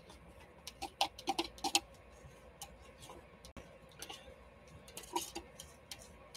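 Faint, scattered clicks and taps of a stir stick scraping against a plastic cup as part A of a two-part resin is scraped out into a measuring cup. The clicks come in a small cluster one to two seconds in and again around five seconds in.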